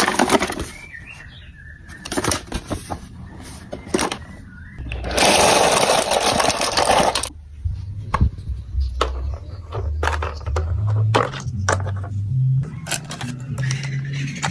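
Marbles clicking and rattling along a plastic building-block marble run, with a dense rattling run about five seconds in. In the second half a low hum steps upward in pitch.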